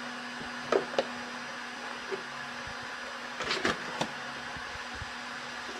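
Electric heat gun running with a steady whir. A few sharp clicks and knocks of the plastic jug being handled come about a second in and again near the four-second mark.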